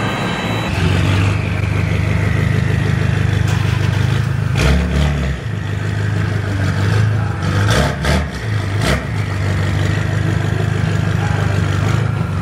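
Car engine running steadily, with a falling whine early on and a few short revs in the middle.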